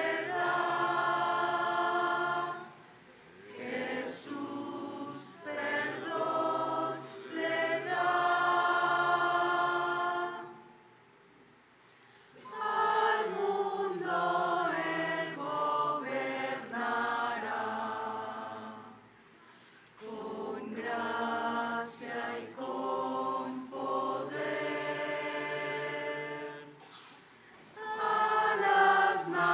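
A choir singing, in long phrases with short breaks between them.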